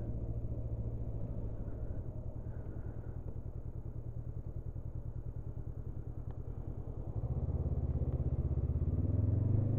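Honda CB500F's parallel-twin engine running at low town speed with a steady pulsing note. About seven seconds in the throttle opens and it gets louder, the pitch starting to rise near the end.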